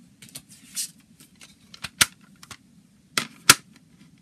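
Plastic CD jewel case being handled and snapped shut: a series of light clicks and taps, then two sharp plastic clicks about two seconds and three and a half seconds in.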